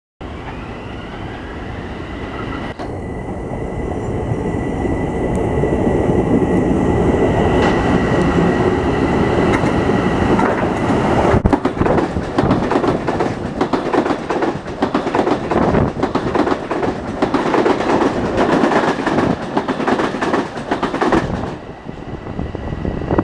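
Long Island Rail Road Budd M3 electric multiple-unit train approaching and passing at speed. A rushing rail noise builds with a steady high tone, then from about halfway comes a rapid clickety-clack of wheels over the rail joints as the cars go by, dropping off near the end.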